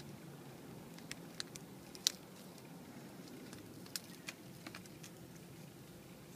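Faint handling noises: a scatter of small sharp clicks and crinkles as a digital thermometer's probe is pushed into a paper-backed disposable probe cover, over a low steady hum.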